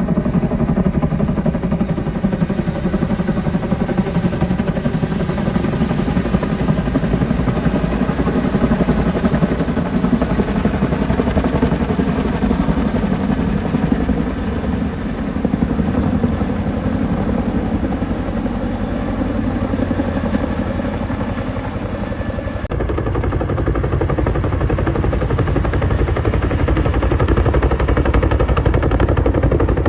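A loud engine running steadily, with a constant low drone and a rapid rattle. About three-quarters through it cuts to a duller, bass-heavier stretch of the same kind of engine noise.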